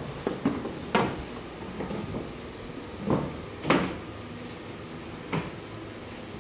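Wooden knocks and thuds of flat slotted bed panels and shaped wooden end pieces being handled and set down on a wooden workbench: about six scattered knocks, the loudest about a second in and near the middle, over a steady faint hum.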